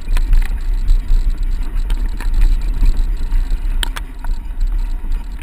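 Mountain bike riding a trail: wind rumbling on the microphone, with scattered sharp clicks and knocks from the bike, clearest near the start and twice close together about four seconds in.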